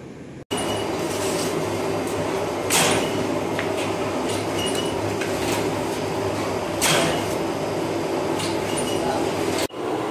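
Steady mechanical hum of bakery machinery, with two brief rustling swishes, about three and seven seconds in, as a large mass of dough is handled in a steel mixer bowl.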